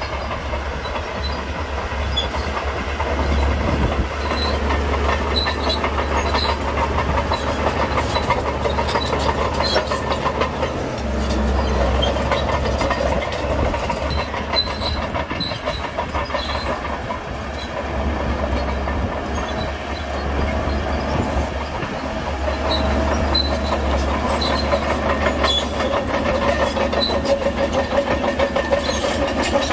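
Shantui DH17C2 crawler bulldozer running steadily, with a dense clatter of its steel tracks as it pushes broken stone and backs up. The engine note strengthens near the end as the blade drives into the next load.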